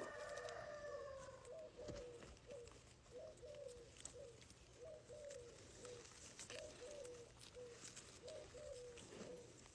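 Soft, low bird calls, short falling notes repeating about twice a second, with a few faint taps.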